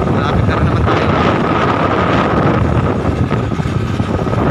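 Honda motorcycle riding at a steady speed, its engine running under heavy wind noise on the microphone.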